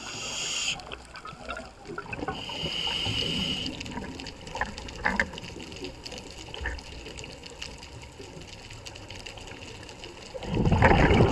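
Scuba regulator breathing underwater: a short hissing inhalation at the start and another about two seconds in, then a loud rush of exhaled bubbles near the end, with crackling water noise in between.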